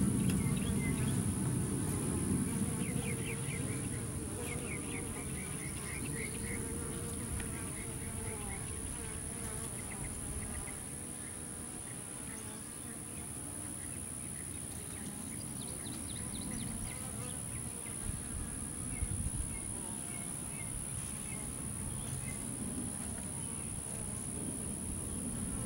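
Honey bees buzzing in a steady, dense hum as the workers crowd over an open brood comb, with a thin, steady high-pitched whine alongside.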